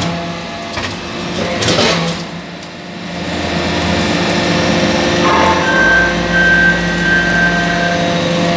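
Hydraulic metal-chip briquetting press running, its pump and motor giving a steady hum. There is a brief clatter about two seconds in, and a deeper hum with a high steady whine comes in about six seconds in.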